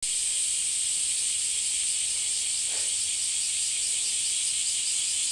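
Steady, high-pitched chorus of insects shrilling in the trees, with a faint fast pulsing running through it.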